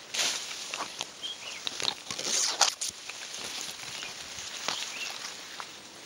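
Tall grass and leaves brushing and swishing against bodies and a backpack as people push through dense growth on foot, with footsteps; loudest about two seconds in.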